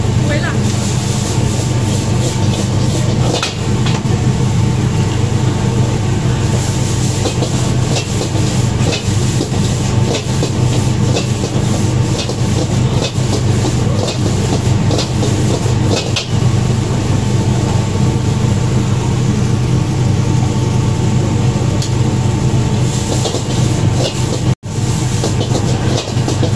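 Gas wok burner running with a steady low roar while a metal ladle scrapes and clatters against the iron wok as rice noodles are stir-fried, hissing in the hot pan. The sound cuts out for an instant near the end.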